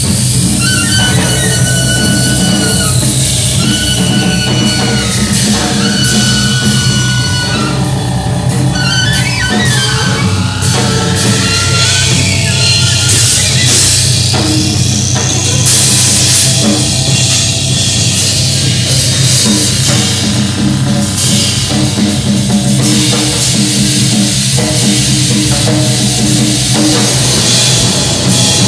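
Loud live noise music: a drum kit played hard with cymbal hits over electronic drones. A sweeping tone falls slowly in pitch and then climbs back up over several seconds.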